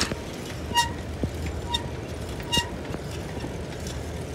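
Bicycle ridden along asphalt: steady tyre and wind noise, with a short ringing ping three times, about a second apart.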